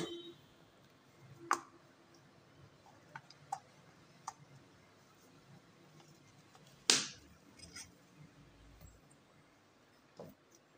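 Plastic LED bulb housing and diffuser dome being handled on a workbench: a scattering of light clicks and knocks, the loudest about seven seconds in.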